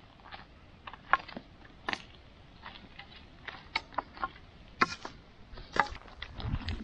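Footsteps and a wooden walking stick on a stony dirt path: a run of irregular sharp clicks and knocks on gravel and stone.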